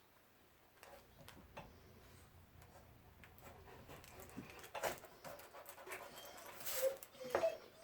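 A dog panting, with a few louder breaths in the second half.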